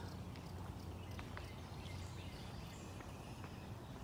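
Faint outdoor background: a low steady rumble with a few scattered faint clicks and no calls.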